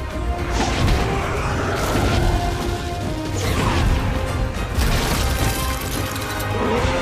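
Dramatic film score mixed with the crashes, impacts and falling whooshes of a dragon fight.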